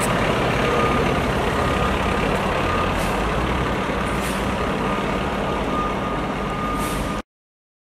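Seagrave fire truck's diesel engine running as it reverses, with its backup alarm beeping over and over and a few brief hisses; the sound cuts off suddenly about seven seconds in.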